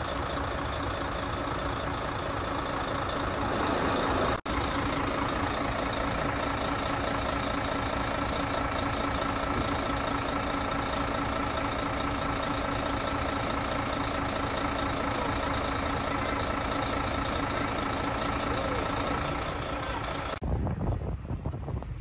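Engine of a truck-mounted crane running steadily, with a steady whine over it. About twenty seconds in it gives way to wind buffeting the microphone.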